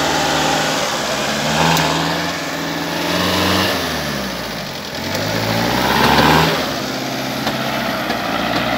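Mitsubishi Pajero II's engine revving up and falling back twice as the 4x4 works its wheels through a mud hole: a first rise about two seconds in and a second, louder one around six seconds in.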